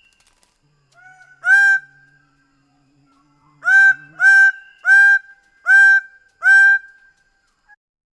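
Greater bird-of-paradise calling: six loud, short calls, one about a second and a half in, then five in a quick even run. Each call sweeps up slightly at its start and then holds its pitch.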